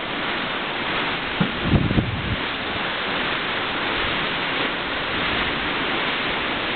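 Steady rush of wind over a microphone at the top of a sailboat's mast, mixed with the hiss of the sea rushing past the hull at speed. A few low buffeting gusts hit the microphone a couple of seconds in.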